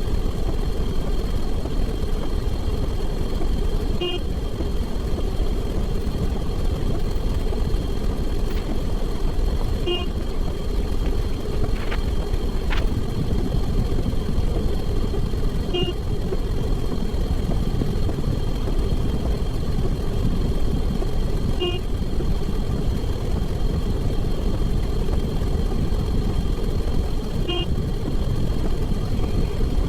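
Steady traffic-like rumble with a short, high horn-like toot repeating about every six seconds, plus two brief clicks near the middle.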